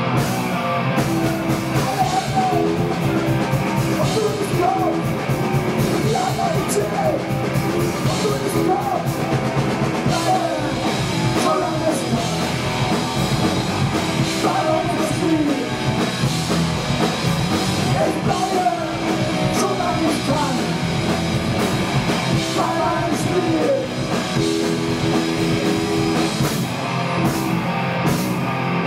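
A punk rock band playing live: electric guitars and a drum kit with a lead vocal, loud and continuous.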